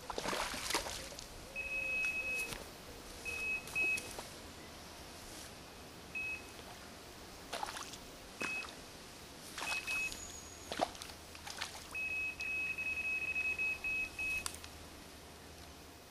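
Electronic carp-style bite alarms beeping in short bursts, with a fast run of beeps near the end, set off because the hooked perch has crossed and tangled the other line. Splashing of the fish at the surface and rustling fall between the beeps.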